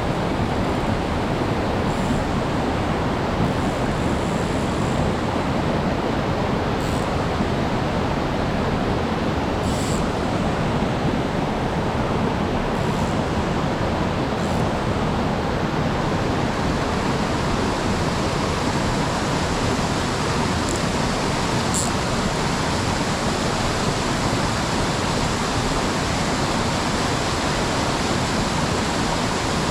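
Mountain stream water rushing steadily, an even, constant noise, with a few faint high ticks over it.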